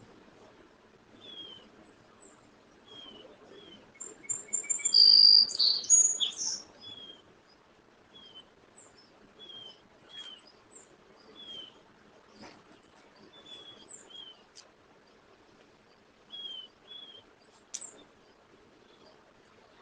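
Small birds chirping: a short falling chirp repeats about once a second, with a louder burst of higher whistles and trills from several birds about four to six seconds in, over a faint hiss.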